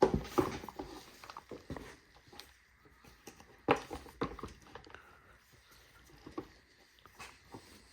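Irregular light knocks and clicks of a chainsaw and hand tools being handled and set down, the loudest about a second in and again near the middle.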